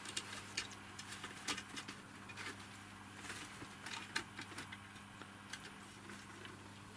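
Faint, irregular small clicks and taps over a low steady hum.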